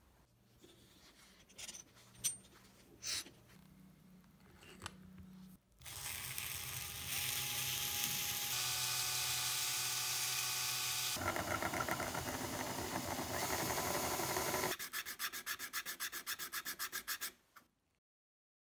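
Power drill spinning a brass washer on a bolt against sandpaper: a steady sanding rasp over the drill's motor hum, pulsing rapidly in the last few seconds before it stops suddenly. Before it starts, a few light clicks from handling the parts.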